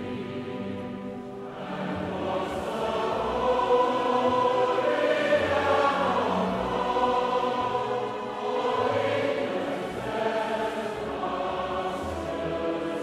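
Choral music: many voices singing long held notes together, louder from about two seconds in.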